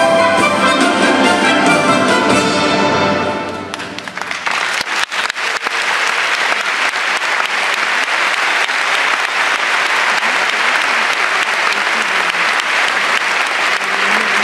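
Symphony orchestra holding a chord that dies away about three and a half seconds in, then audience applause that starts with scattered claps and settles into steady clapping.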